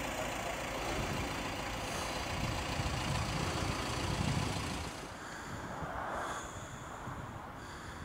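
A van's engine running, a steady rumbling noise that drops in level about five seconds in.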